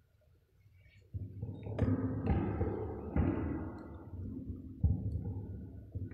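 Handling noise on the table microphones: a run of thumps and knocks with low rumbling, starting about a second in, as a desk microphone is moved and adjusted.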